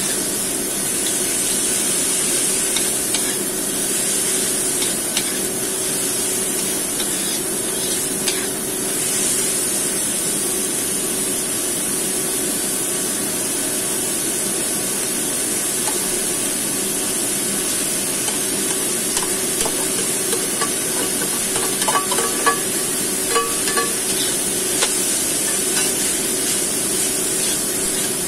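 Diced vegetables and rice sizzling in a hot wok while a metal spatula stirs and scrapes through them, a steady frying hiss. A short run of sharp clicks from the spatula against the pan comes about three quarters of the way in.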